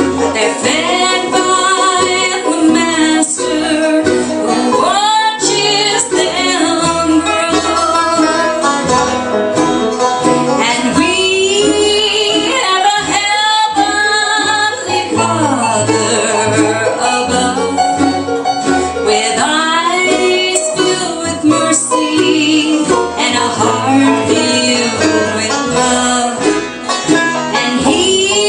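Live bluegrass band playing a gospel song on banjo, acoustic guitar and mandolin, with a woman singing lead.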